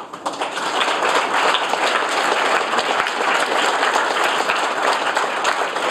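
Audience applauding in a hall: many hands clapping in a dense, steady patter.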